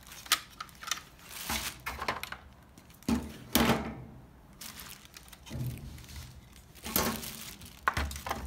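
Pink plastic bubble wrap crinkling while the plastic housing of a washing-machine control board is handled, turned over and set down on it, with several sharp plastic knocks and clicks.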